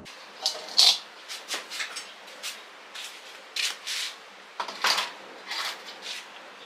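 Irregular short rustling, scraping strokes, about a dozen over several seconds, some louder than others.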